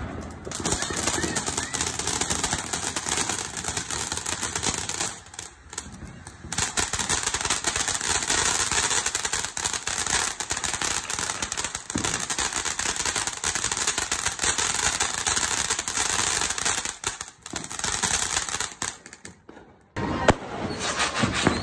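Ground fountain firework spraying sparks: a dense hiss of rapid crackling pops. It dips briefly about five seconds in and dies away near the end.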